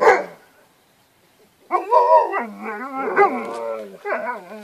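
Alaskan Malamute vocalizing: a short bark right at the start, then from about two seconds in a long, howl-like run of sounds whose pitch wavers up and down.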